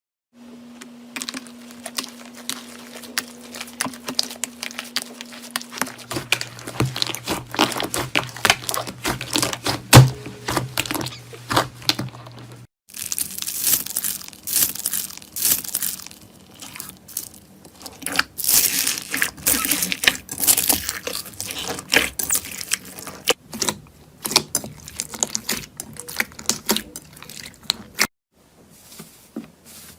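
Slime being squeezed and worked by hand, with dense crackling, popping and crunching, in several short clips cut together. The clips change abruptly at about 6, 13 and 28 seconds in. A faint steady hum lies under the first two clips.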